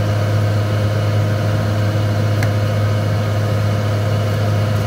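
JCB tracked excavator's diesel engine running steadily, a deep even hum.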